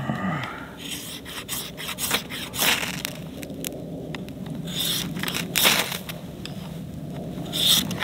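A large ferrocerium fire steel (ferro rod) is scraped again and again with a Victorinox pocket knife to throw sparks onto tinder. It makes a run of rasping strokes, some short and some longer and louder, at an uneven pace.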